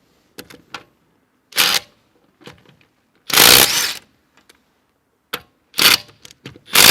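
Brushless Parkside Performance PDSSAP 20 Li B2 cordless impact driver hammering in four short bursts as it breaks loose car wheel bolts torqued to 15 kg·m, one after another. The longest burst, under a second, comes a little past the middle. Light clicks of the socket being fitted onto the bolts fall between the bursts.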